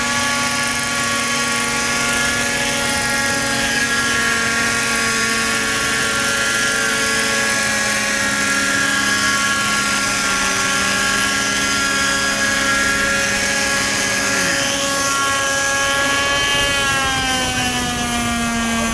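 Radio-controlled model helicopter engines running with a steady, high whine. One engine drops in pitch about fourteen seconds in and another rises near the end.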